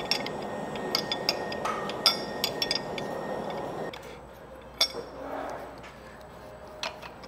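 Steel wrench clinking and clicking against bolts and the steel housing of a progressive cavity wastewater pump: a quick run of sharp metallic clinks for about four seconds, then a couple of single clinks. A steady background whir with a thin high tone underneath cuts off abruptly about four seconds in.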